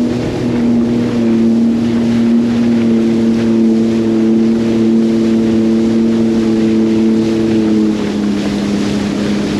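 Sea-Doo GTX 170 personal watercraft's three-cylinder Rotax engine and jet drive running at a steady cruise over rushing water. The engine note drops slightly about eight seconds in as the throttle eases.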